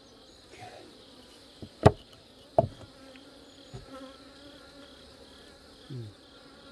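Honeybees humming steadily around an open hive. Two sharp knocks come about two seconds in, with a few fainter taps around them.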